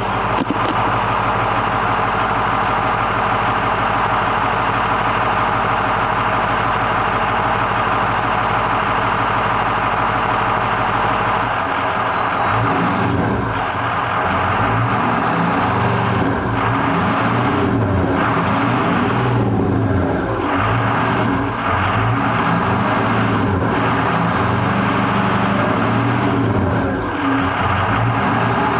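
Ford E350's 6.0 Power Stroke turbo V8 diesel running steadily through a 4040XL Aero Turbine muffler. From about twelve seconds in, the revs rise and fall again and again, and a high turbo whistle glides up and down with them.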